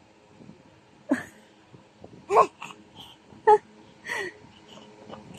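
A baby making short, breathy vocal sounds: four brief bursts about a second apart, the last one falling in pitch.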